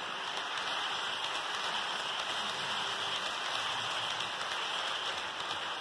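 HO scale passenger cars rolling past on model track: a steady rolling noise of small metal wheels on the rails.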